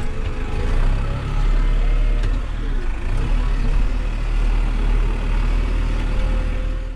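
Farm tractor's diesel engine running steadily, with a deep rumble.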